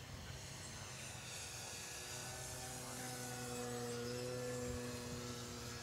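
Electric motor and propeller of a HobbyKing Yak-11 radio-controlled model plane in flight: a steady humming drone with a high hiss that swells a little past the middle.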